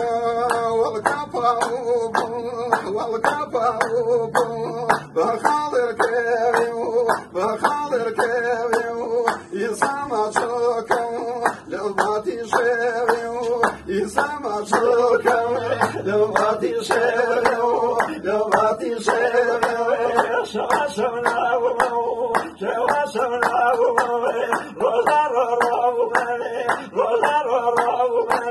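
A man singing a Hawrami Kurdish folk song (gorani) in long wavering phrases, while a group claps a steady beat together.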